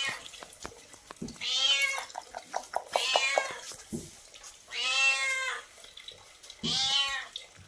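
A domestic cat meowing four times, each call about half a second long, with short clicks between some of the calls.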